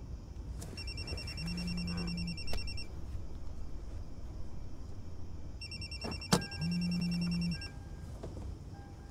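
A telephone ringing twice, each ring a rapid high trill lasting about two seconds, with a low steady buzz partway through each ring. A sharp click comes just before the second buzz, over a low background hum.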